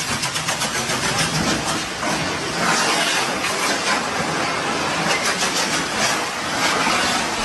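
Fireworks hissing with a dense, continuous crackle, and bursts of rapid sharp crackles near the start and again around five to six seconds in.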